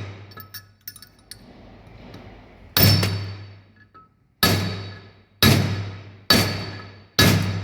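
A hammer striking steel, five heavy blows with a metallic ring, the last four coming about a second apart, with a few light metal clinks before them. The blows fall during work on a worn front wheel bearing whose balls have broken up.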